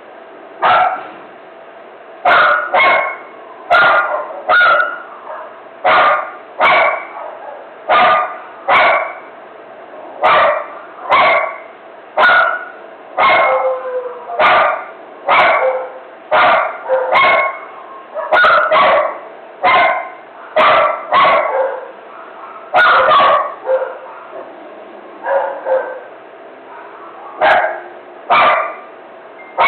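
A dog barking in a frenzy: sharp barks over and over, roughly one a second, with a few short pauses.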